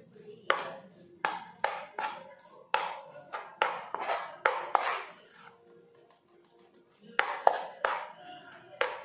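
Stainless steel spoon scraping and knocking against a nonstick pan while stirring a crumbly besan (gram flour) mixture: sharp strokes a few a second, a pause of about two seconds, then another run of strokes.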